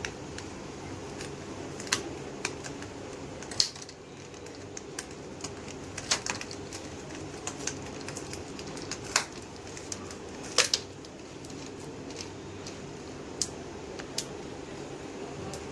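Irregular sharp plastic clicks and snaps as the screen bezel of a Compaq Presario CQ42 laptop is pried off its clips, over a steady low hum.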